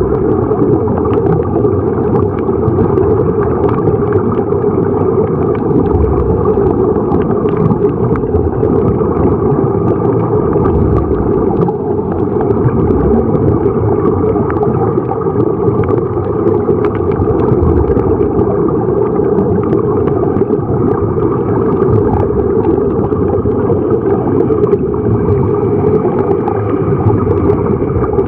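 Steady, muffled underwater rumble and gurgling of air bubbles as heard by a camera under water, with many faint crackles, while air streams from sea-walker diving helmets.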